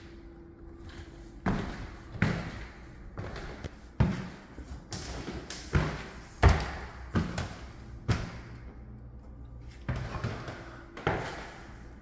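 Footsteps climbing a wooden staircase: about a dozen heavy thumps, roughly one a second, the loudest about halfway up. There is a short pause before the last few.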